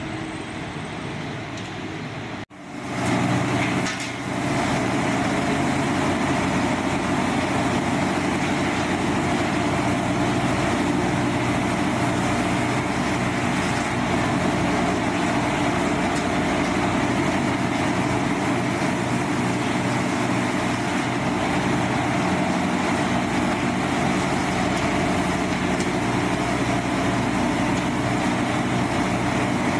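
Industrial tub washer running: a steady, loud rush of water spray over the hum of its pump motor. It comes in suddenly about two and a half seconds in, after a quieter stretch of factory noise.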